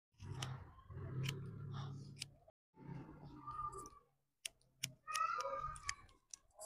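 Hairdressing scissors snipping through wet hair: several short, sharp clicks, over a low background murmur.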